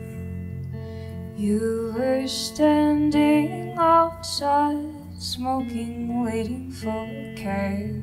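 A woman singing a slow song over a guitar. The guitar plays alone at first and her voice comes in about a second and a half in.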